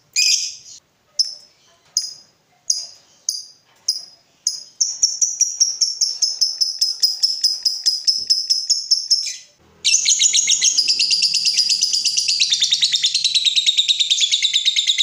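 Lovebird calling: a run of separate sharp chirps, then from about five seconds in a long, rapid chattering trill, the drawn-out 'ngekek' call. The trill breaks off briefly near the ten-second mark and starts again louder.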